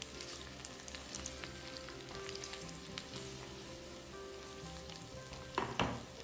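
Food frying in a pan: a steady sizzle with crackling pops, and one louder knock near the end.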